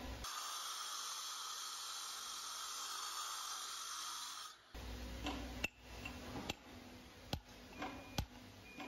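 Angle grinder cutting a granite kerb, a steady high whine that stops about four and a half seconds in. Then about four sharp hammer strikes on a chisel against the granite, roughly one a second.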